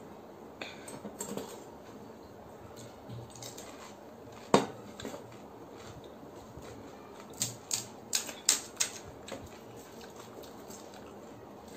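Scattered light clicks and taps from hands handling pani puri: crisp puri shells being cracked open and a plastic spoon working the filling on a plastic plate. There is one sharper click about four and a half seconds in and a quick run of clicks a little past halfway.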